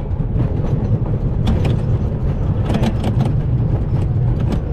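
Wooden scenic railway roller coaster train running along its track: a steady low rumble of the wheels, broken by sharp clattering knocks that come in a few clusters, the thickest about three seconds in.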